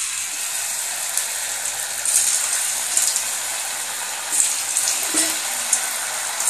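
Batter-coated cauliflower florets deep-frying in hot oil: a steady sizzle with crackles. It swells louder a couple of times as more pieces go into the oil.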